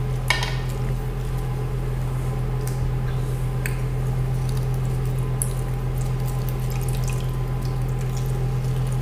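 Orange juice dripping and squirting into a frying pan as an orange half is squeezed by hand and twisted against a wooden spoon handle, with a few small sharp clicks. A steady low hum runs underneath.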